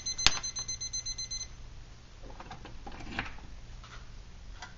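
Digital probe thermometer's alarm beeping rapidly and high-pitched, signalling that the water has reached 212°F, a full boil. It cuts off about a second and a half in, just after a sharp click, and faint handling taps and rustles follow.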